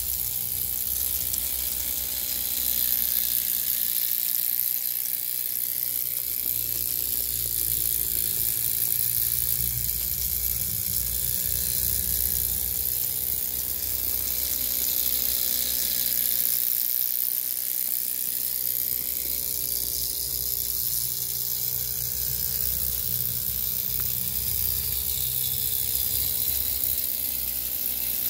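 Miniature Holzapfel live-steam roller running along: a fast, steady buzzing whir from its little steam engine over a constant hiss. The pitch wavers gently up and down as the engine's speed changes.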